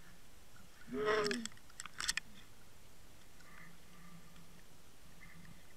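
A short, muffled voice-like call about a second in, followed by a few sharp clicks, over a faint hiss.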